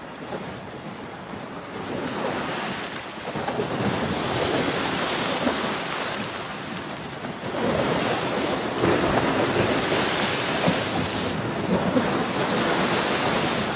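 Wind gusting across the microphone, a rough rushing noise that grows louder about two seconds in and again about halfway through.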